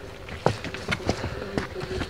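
Footsteps of several hikers climbing a rocky, gravelly trail: irregular scuffs and clicks of shoes on stone and grit.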